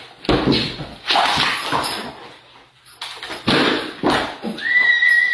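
A large dog barking excitedly in several short bursts, with a high steady squeal lasting about a second near the end.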